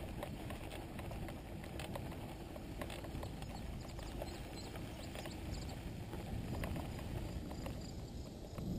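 Mountain bike rolling over pavement and grass: a steady low rumble of tyres and wind, with scattered light clicks and rattles.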